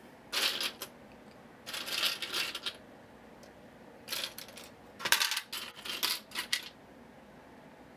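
Small plastic LEGO minifigure pieces clattering as a hand rummages through them, in several short bursts with pauses between.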